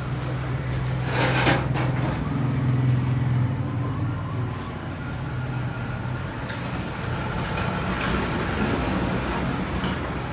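A motor running steadily with a low hum, and a few short clicks over it.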